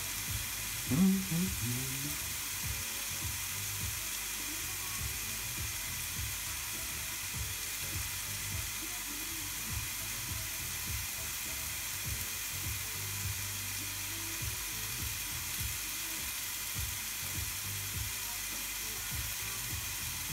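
Ribeye steak sizzling between the closed hot plates of a Tefal Optigrill XL contact grill: a steady hiss with small scattered crackles. A brief, louder low sound about a second in.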